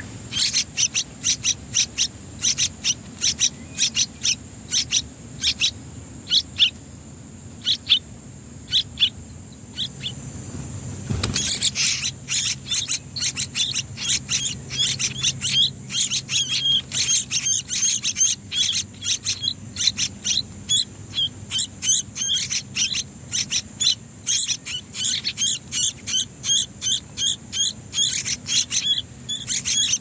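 Bulbul nestlings begging with rapid, high-pitched cheeping, several calls a second. The calling pauses briefly about ten seconds in, then a single sharp knock or rustle comes about eleven seconds in.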